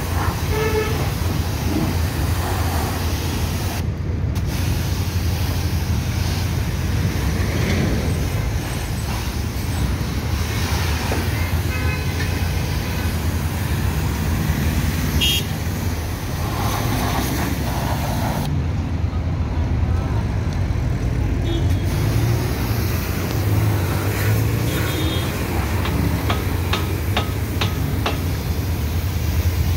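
Pressure washer running with a steady low hum while its water jet hisses against a car's body and wheels, over passing road traffic.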